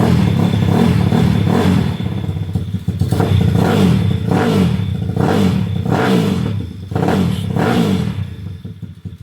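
A 261cc motorcycle engine on its first start after the build, running and revved in a string of quick throttle blips. The engine then eases off and quiets near the end.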